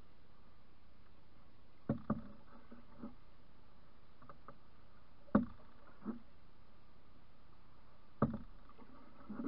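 Canoe paddling: sharp knocks from the paddle strokes, roughly one every three seconds, each with a smaller knock just after, the loudest in the middle, over faint steady background noise.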